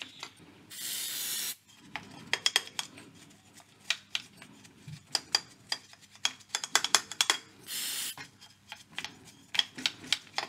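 A stiff brush scrubbing dust off a valve radio's metal chassis in quick scratching strokes, with two short hissing spray bursts, one about a second in and one near the end.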